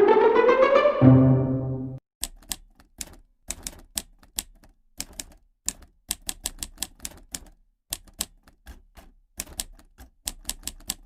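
Typewriter keys clacking in quick, irregular runs of typing, with short pauses between runs. Before it, for about the first two seconds, a rising musical tone closes the previous effect.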